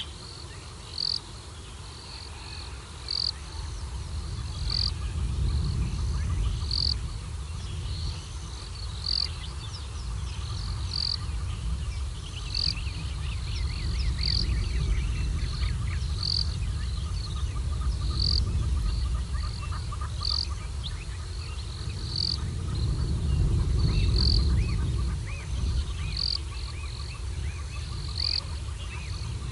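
Bush wildlife calling: a short high chirp repeats about every two seconds while birds twitter in the background, over a low rumbling noise.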